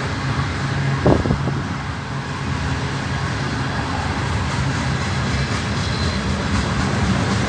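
Freight train of centerbeam flatcars loaded with lumber rolling past: a steady rumble of steel wheels on the rails, with one short sharp knock about a second in.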